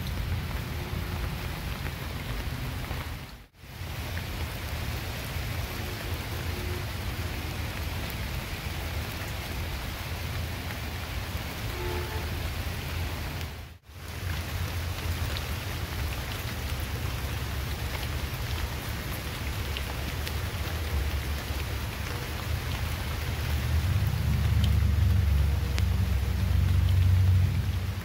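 Steady rain falling on garden leaves, with a low rumble underneath that grows louder near the end. The sound drops out briefly twice, about 3 and 14 seconds in.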